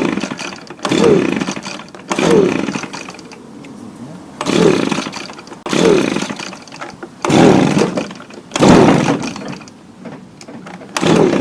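Recoil pull-start of an Echo ES250 two-stroke blower yanked about eight times, often in quick pairs, each pull a rising-and-falling whirr as the engine turns over without settling into running.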